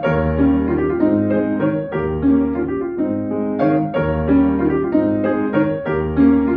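Solo acoustic piano playing classical music. A low bass note falls about once a second, each followed by chords and a melody above.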